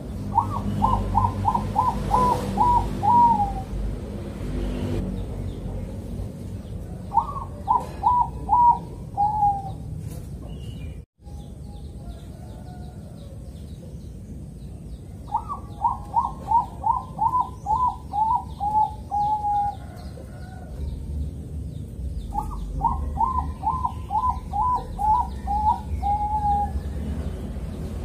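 Zebra dove (Thai-bred perkutut bangkok) cooing in four phrases. Each phrase is a quick run of repeated notes that ends in a longer drawn-out note.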